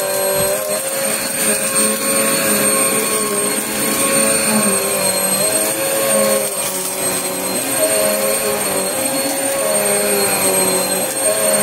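Bagless upright vacuum cleaner running steadily over carpet, its motor whine wavering slightly in pitch, as it sucks up scattered crunchy debris.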